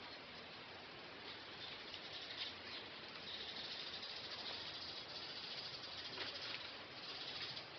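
Skinks scuffling: faint rustling and scratching over a steady hiss, with a few louder scrapes about two and a half seconds in and near the end.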